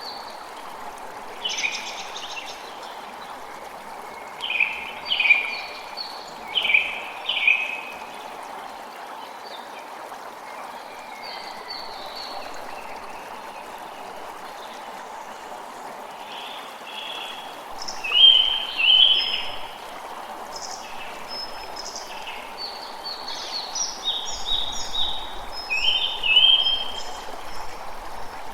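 Forest ambience: a steady rush of flowing water under songbirds calling in short runs of chirps. The birds come in several spells, loudest about two seconds in, around the middle of the clip, and toward the end.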